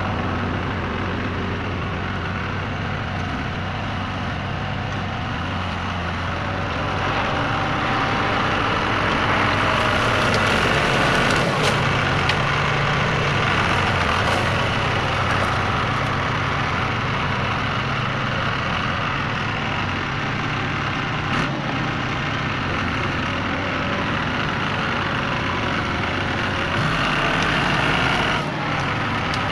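Engine of an old Case IH loader tractor running steadily as the tractor drives into heavy brush, growing louder for several seconds from about seven seconds in. A couple of short sharp cracks are heard, about halfway and two-thirds of the way through.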